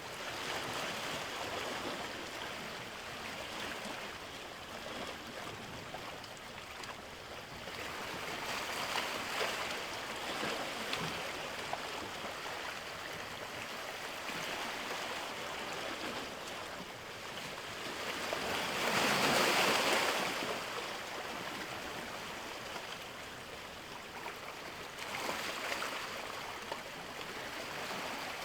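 Sea waves washing in a steady rush of water that swells and eases every few seconds, with the biggest surge about two-thirds of the way through.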